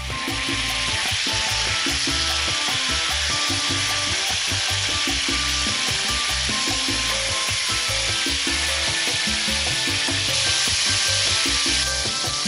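Chicken drumsticks sizzling steadily in hot oil in a frying pan, a dense, even hiss.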